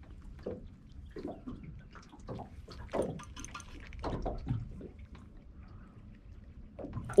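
Small waves lapping and slapping irregularly against the hull of a small aluminium boat (tinny) as it drifts.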